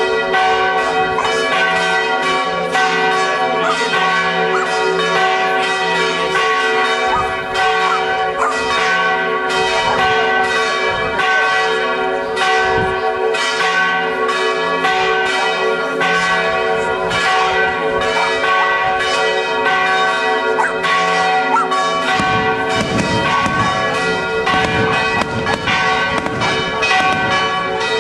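Church bells ringing a fast, continuous festive peal, many strikes a second overlapping into one another.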